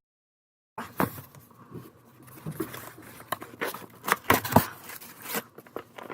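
Cardboard shipping box being opened without a box cutter: tape and cardboard tearing and scraping in a run of sharp rips and clicks, the loudest a little past the middle. It begins with under a second of dead silence.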